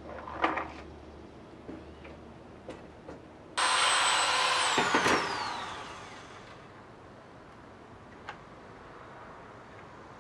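A handheld power drill runs at full speed for about a second and a half against the camper's aluminum skin, then is let off, and its whine falls steadily in pitch as the motor spins down. A few light knocks come before it.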